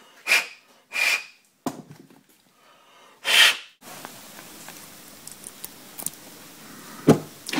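Three sharp puffs of breath blown onto hot, freshly angle-ground flashlight pieces to cool them. After that come faint clicks of the metal parts being handled and a single knock near the end.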